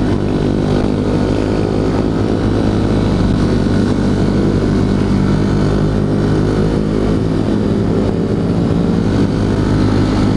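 Honda CRF150L motorcycle's single-cylinder four-stroke engine running at a steady, even speed while riding.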